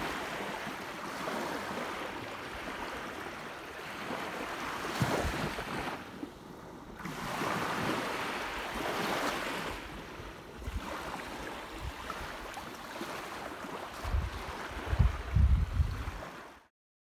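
Waves washing onto a sandy shore, a rushing noise that swells and ebbs every few seconds, with wind buffeting the microphone in low rumbles near the end. The sound cuts off just before the end.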